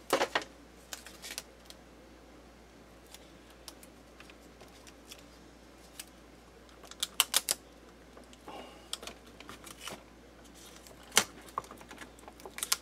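Scattered light clicks and taps of hands handling parts on a turntable's valve amplifier chassis. There is a quick cluster of clicks about seven seconds in, a soft rustle after it, and a sharper single click near the end.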